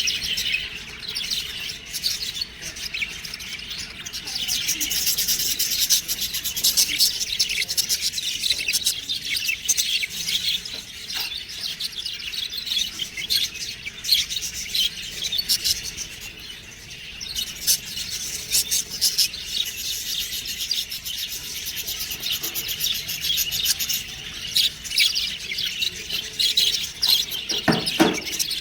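Budgerigars chirping and chattering continuously in quick, high twittering notes, with a few brief low knocks near the end.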